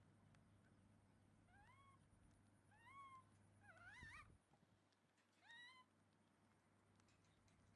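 Baby macaque giving four short, high, rising coo calls about a second apart; the third is longer and wavers up and down.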